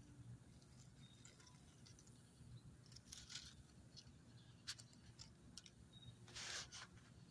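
Near silence, with a few faint short rustles and clicks: a pair about three seconds in, a sharp click near five seconds, and a slightly longer rustle after six seconds.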